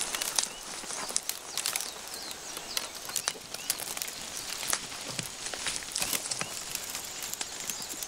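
Dry cocklebur stalks and burs rustling and crackling against a dog's fur as it pushes through them, with many irregular sharp snaps and clicks.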